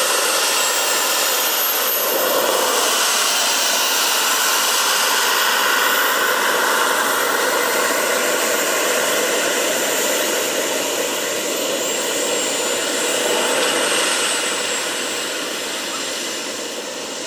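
The two jet turbines of a Short SB.4 Sherpa scale model running while it taxis: a steady rushing blast with a high whine on top. It grows gradually fainter over the last few seconds as the model moves away.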